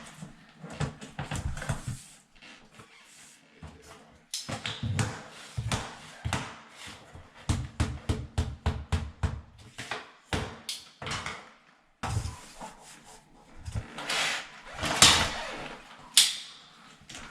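Click-lock flooring planks being fitted together on the floor: a string of knocks and taps as pieces are set down and pressed or tapped into place, with a stretch of scraping near the end.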